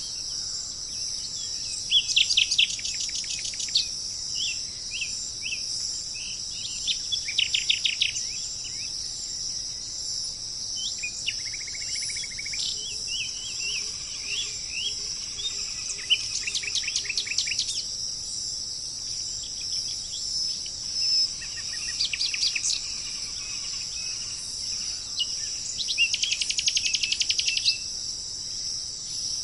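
Birds singing in bursts of rapid, repeated chirping notes every few seconds, over a steady high-pitched drone of insects.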